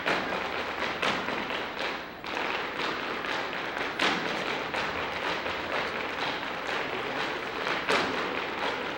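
Irish dance hard shoes striking the stage floor as a group of dancers performs a hard shoe dance: a fast, dense patter of taps and clicks, with louder stamps at the start, about a second in, at about four seconds and near the end.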